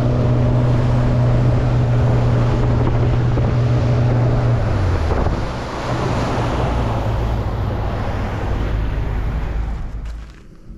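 Outboard motor of a Polycraft 5.3 polyethylene boat running at speed, with wind on the microphone and water rushing along the hull. About five seconds in, the engine note drops as the throttle comes back, and near the end the sound cuts off.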